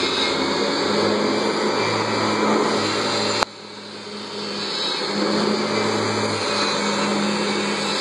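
Upright vacuum cleaner motor running steadily with a humming drone. About three and a half seconds in, a sharp click, then the sound drops abruptly and builds back up over the next couple of seconds.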